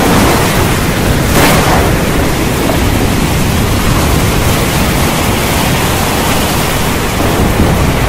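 Heavy rain pouring steadily under a low rumble of thunder, with a brief sharper burst about a second and a half in.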